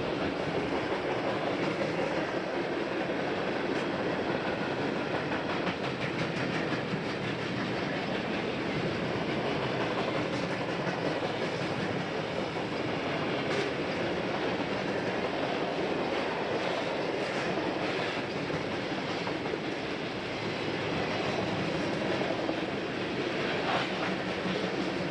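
A mixed freight train of tank cars, boxcars and covered hoppers rolling past: the steady noise of steel wheels running on the rails, with a few clicks.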